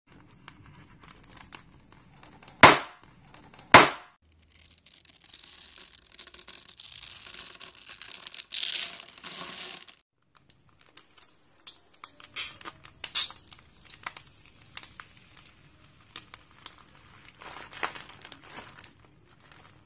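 Hands squeezing a foil-covered slime ball: two sharp snaps, then several seconds of dense crackling and crinkling of the metallic foil. After a short break come quieter squishing and scattered small pops and clicks as bags of foam and foam slime are pressed.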